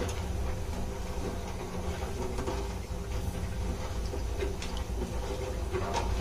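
Gas stove burner running steadily under a pot of water and sugar heating into syrup. A few light clinks of a stirring spoon against the pot sound through it.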